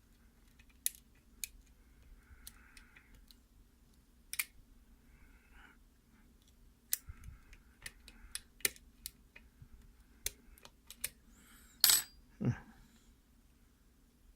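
Picking a spool-pinned mortise lock cylinder: irregular sharp metallic clicks and light scrapes from the hook pick and tension wrench working the pins, with a louder double click about twelve seconds in.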